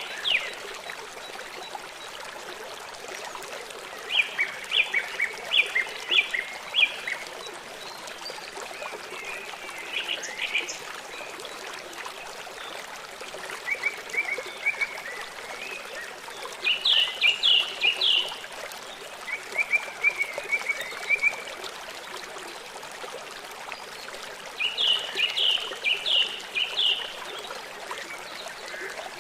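A small songbird singing short phrases of rapid repeated high notes, one every few seconds, over a steady hiss of running water.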